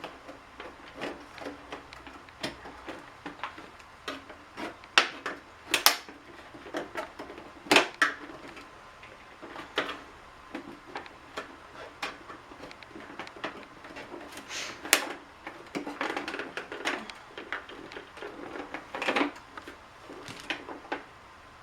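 Irregular clicks, taps and knocks of a Keurig coffee maker's plastic housing being handled and pried at during disassembly, with sharper clacks about five, six, eight, fifteen and nineteen seconds in.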